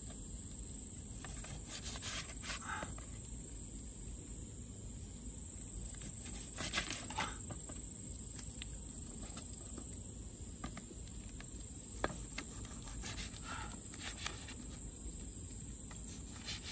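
A heavy cleaver slicing through a guava on a bark board, with a few short knocks as the blade meets the board, one crisp knock about twelve seconds in. A steady high-pitched whine runs underneath.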